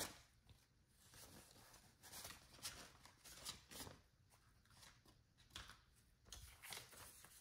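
Faint rustling and crinkling of paper banknotes being pulled out, sorted and laid down by hand, in short soft bursts.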